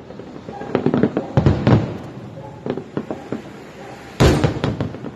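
Fireworks bursting: a string of bangs about a second in, a few sharper cracks around three seconds, and a big boom near the end, each trailing off in a rumble.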